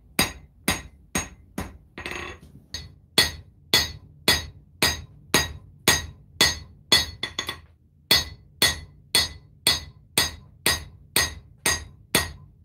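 Hand hammer striking a red-hot 1095 high-carbon steel knife blade on an anvil, about two blows a second, each blow ringing. There is a short break in the rhythm about two seconds in. The blows are forging the blade's bevels and a false edge on the spine.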